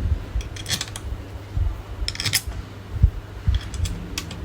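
Short clusters of small sharp clicks, about four times, from a hand tool fitting the screws that hold the voltage regulator onto an alternator.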